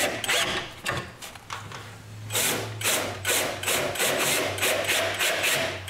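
Power drill driving screws, its motor running with a rapid train of clicks.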